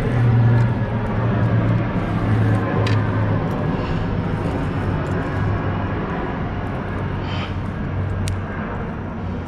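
A steady low engine drone that slowly fades, with a few faint clicks.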